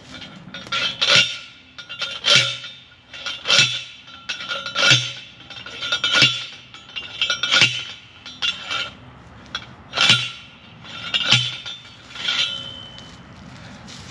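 Steel T-post being driven into the ground with a hand post driver: about ten metallic clanks, one roughly every 1.3 seconds, each with a short ring.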